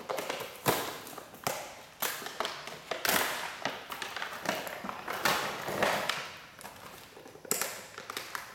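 Cardboard-and-plastic blister packaging of a Mattel WWE action figure being torn and pulled open by hand: a series of sharp crackles and longer rustling tears.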